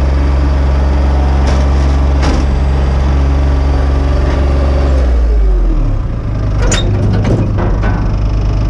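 Skid steer loader's engine running steadily at high revs, then throttled back about five seconds in, its pitch falling. A few sharp metal clanks follow as loading ramps are set against the truck bed.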